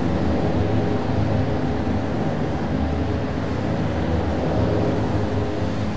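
Steady low mechanical rumble with a faint hum, unchanging throughout.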